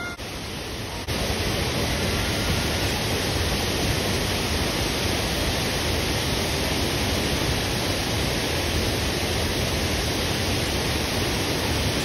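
Steady rushing of water, an even, unbroken noise that sets in abruptly about a second in.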